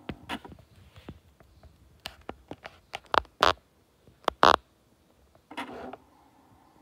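Handling sounds of a film SLR camera held to the eye: a scatter of sharp clicks and knocks, loudest a few in the middle, then a short whirr of about half a second near the end as the autofocus drives the lens.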